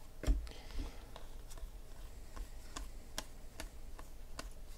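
Trading cards being flipped one by one off a hand-held stack, each card giving a light, sharp click, roughly three a second, with a soft thump near the start.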